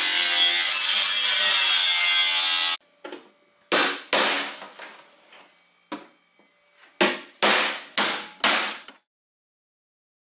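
Handheld angle grinder running against the metal of a snowmobile tunnel, a loud steady grinding that cuts off suddenly about three seconds in. It is followed by about eight short, separate scraping strokes on the metal.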